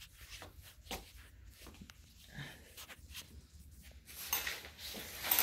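Scattered soft clicks and rustles from a handheld phone being moved about in a small room, with a louder rustling stretch near the end.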